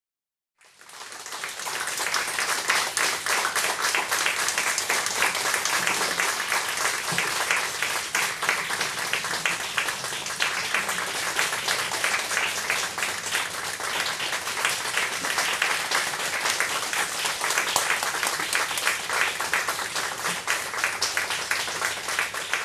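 Audience applauding: a dense, steady clatter of many hands clapping that starts suddenly about half a second in.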